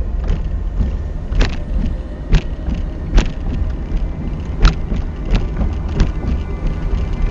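Car cabin rumble while driving slowly over a rough gravel road, with a few sharp knocks and jolts from the bumps.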